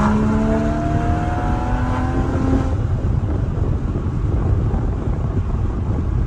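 Porsche engine with a modified exhaust heard from inside the cabin, pulling hard under acceleration with its note rising steadily. About three seconds in, the engine tone drops away, leaving a dense rumble of road and wind noise.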